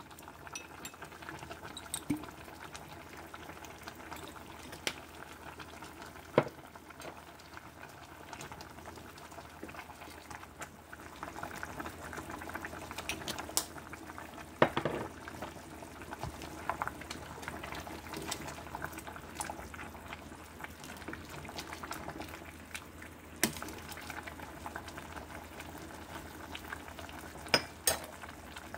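A pot of food boiling on the stove, bubbling steadily, with a few sharp clinks and knocks scattered through.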